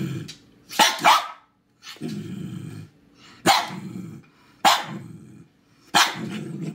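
A dog barking about five times in short outbursts, with low growling between the barks.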